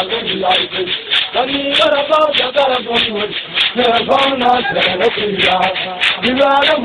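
A crowd of dancers' voices singing and chanting together over sharp percussive hits in a loose rhythm, recorded loud and distorted.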